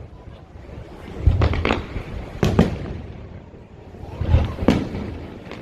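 Fireworks display bursting overhead: deep booms with a crackling tail, six bursts coming in three quick pairs after a quieter first second.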